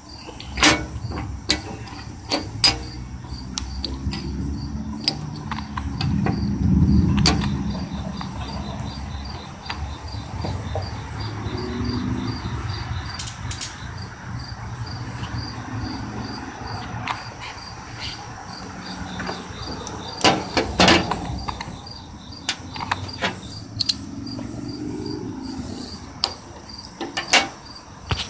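Crickets chirping in a steady, even pulse. A low rumble swells and fades around seven seconds in, and scattered sharp clicks and knocks come through now and then.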